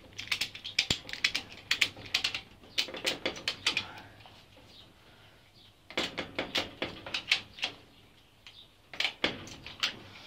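Ratchet tie-down strap being cranked tight: quick runs of sharp ratchet clicks in four bursts, with short pauses between.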